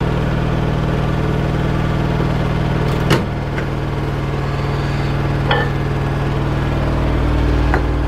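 Panasonic microwave oven running with a steady low hum while it heats a bowl of porridge, with three short clicks at about three, five and a half and nearly eight seconds in.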